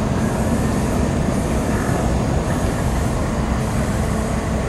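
A car ferry's engines running as the ship pulls away from its berth. They make a steady low rumble with a faint hum running through it.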